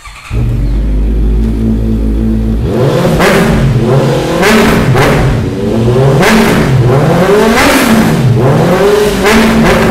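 Honda CB650F inline-four engine catching about a third of a second in and idling for a couple of seconds, then blipped repeatedly, about once a second, each rev rising and falling, through a replica Akrapovič slip-on exhaust.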